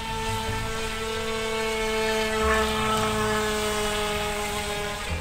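Small electric motor of a remote-control toy speedboat whining steadily, its pitch sagging slightly as it runs.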